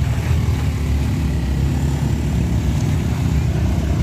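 Small motor scooter engines running as the scooters creep over a muddy, rutted gravel road, a steady low engine drone.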